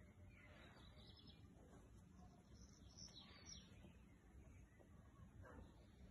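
Near silence outdoors, with a few faint bird chirps about a second in and again around three seconds in.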